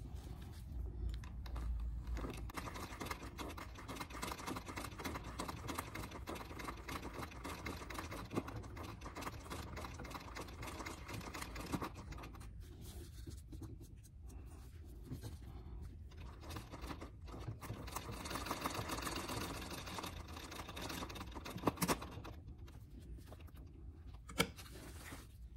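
Treadle sewing machine stitching at a fast, even pace, its needle mechanism clattering as the hooped work is guided by hand. The stitching stops briefly twice, about halfway and near the end.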